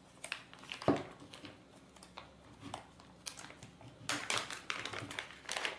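Clear plastic resealable bag crinkling and crackling as fingers handle it and pull its seal open, with a soft knock about a second in and the crackling busiest in the last second and a half.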